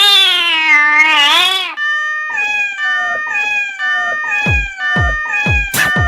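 A long, drawn-out cat meow that rises and then falls in pitch, followed by music: a repeating pattern of short bell-like tones, with deep bass hits that drop steeply in pitch joining in about four and a half seconds in.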